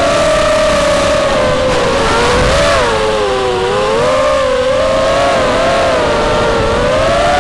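ZMR250 racing quadcopter's brushless motors and propellers whining, heard from the onboard camera. The whine is several close tones that rise and fall together with throttle as it maneuvers, the pitch dipping about halfway through and climbing again near the end.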